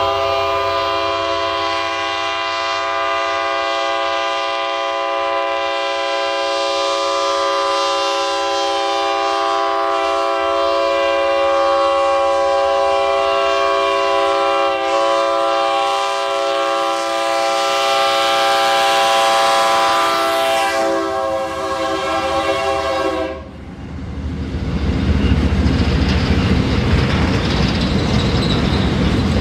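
Locomotive air horn sounding one long continuous blast, a chord of several tones, that cuts off suddenly about 23 seconds in. After it comes the rumble and clatter of the train running past.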